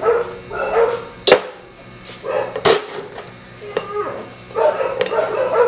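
Sharp metal clicks of hand tools working on a motorcycle cylinder head: one loud click about a second in, another near the middle and a third near the end, among short voiced sounds in the background.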